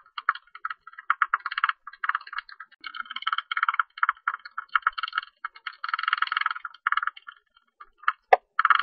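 Tube-nosed bat calls: rapid chattering trains of clicks in bouts about a second long with short gaps between. The calls fall quiet near the end, apart from one sharp click.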